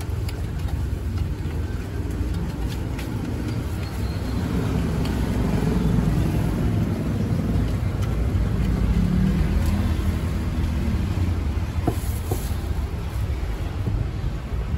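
Road traffic rumbling steadily, with a vehicle passing that swells louder in the middle and then fades.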